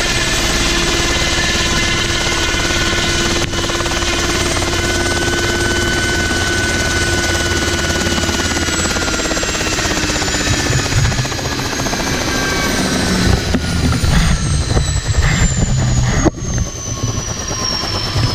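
Ultrasport 496 light helicopter running on the ground with its rotor turning. From about halfway the engine and rotor tone falls slowly in pitch, and an uneven low rumble joins in.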